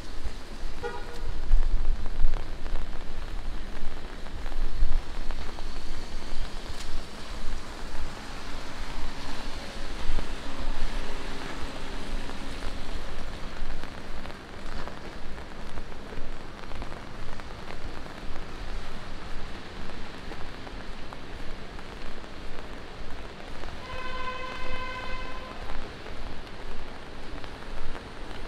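Steady rain hissing on wet city pavement, with low rumbles in the first few seconds. Near the end a steady pitched tone sounds for about a second and a half.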